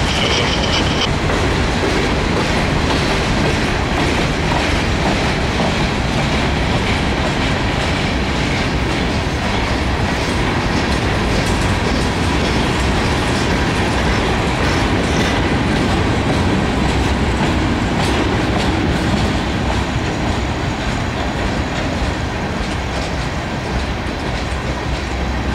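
Freight cars of a slow-moving manifest train rolling past: a steady rumble with the clickety-clack of wheels over the rail. A high wheel squeal stops about a second in, and the rumble eases slightly near the end.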